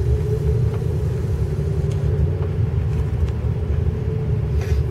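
Car driving along a street, heard from inside the cabin: a steady low rumble of road and engine noise with a steady hum running through it.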